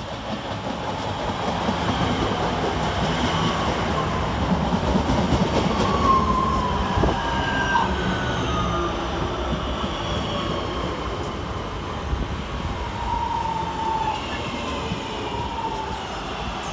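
Two coupled Class 323 electric multiple units arriving and slowing along the platform: a rising rumble of wheels on rail, with whining tones that fall slowly in pitch as the train slows.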